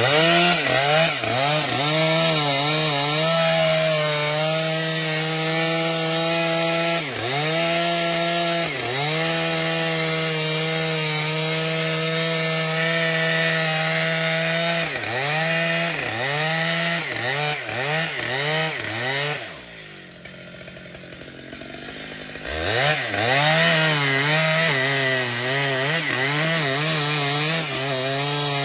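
Stihl two-stroke chainsaw running at high revs through wood, its engine note dipping and recovering again and again as the chain loads in the cut. About two-thirds of the way in it drops to a quieter, lower note for a few seconds, then revs back up.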